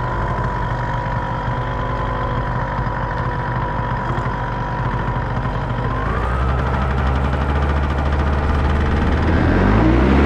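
Paramotor engine running steadily at low throttle, then throttled up about six seconds in, rising in pitch and getting louder with a stronger low drone.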